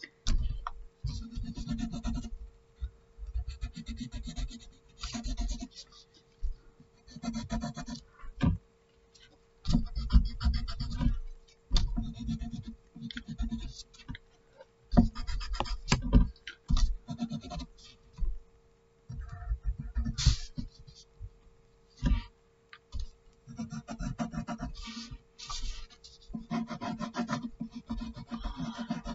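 Pencil scratching across paper in repeated bursts of strokes, each a second or two long with short pauses between, with a low rubbing beneath the high scratch. A steady faint hum runs underneath.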